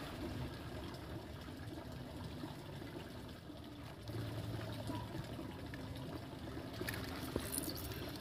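Steady trickling of water at a fish-pond, with a faint low hum coming and going beneath it and a light tap near the end.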